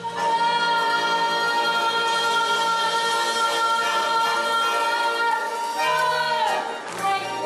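A song playing, with one long sung note held for about six seconds that slides down in pitch near the end, over instrumental backing.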